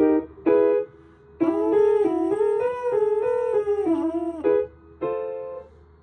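Trombone mouthpiece buzzed on its own as a warm-up: two short buzzes, then a wavering line of sliding pitches lasting about three seconds. A single steady note fades out near the end, the kind a keyboard gives as a reference pitch.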